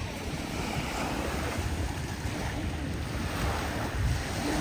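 Sea surf washing onto the beach, with wind buffeting the microphone in a low, uneven rumble.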